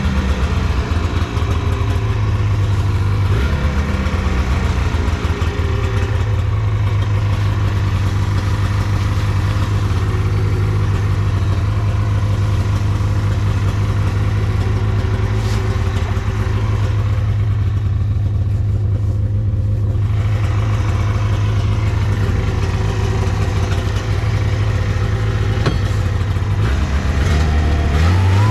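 Taiga Varyag 550 snowmobile engine running steadily.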